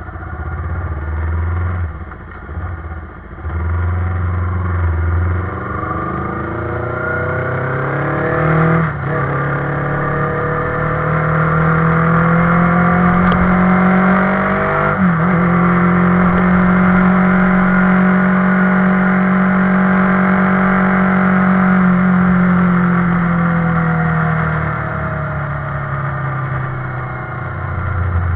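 Motorcycle engine under way, revs climbing and dropping sharply at two gear changes about a third and halfway through. It then runs at steady high revs and eases off toward the end.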